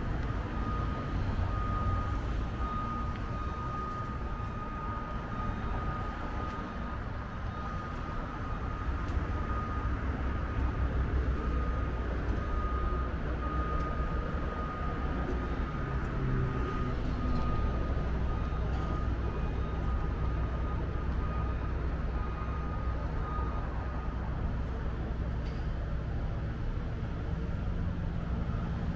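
Downtown street ambience: a steady low rumble of road traffic. A thin, steady high tone sounds over it and stops a few seconds before the end.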